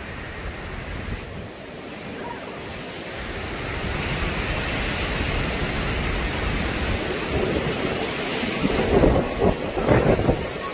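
Hurricane wind rushing through trees and bamboo, building a few seconds in, with louder gusts near the end.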